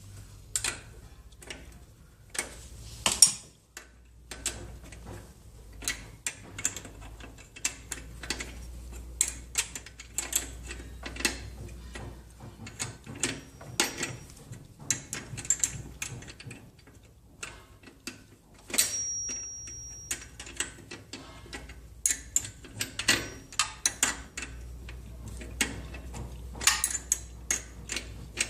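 Hand tools and metal parts clicking and clinking at irregular intervals as the old drive chain is worked off a motorcycle, with a brief high steady tone about 19 seconds in.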